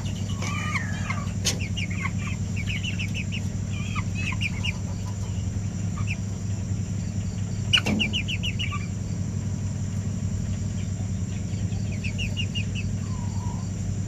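Young aseel chickens calling in quick runs of short, high peeps, in several bouts, over a steady low hum. A sharp knock comes a little before the middle.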